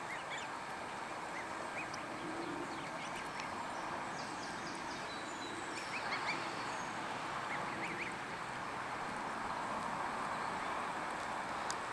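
Goose family with goslings calling: a scattering of short, high, rising peeps over steady background noise.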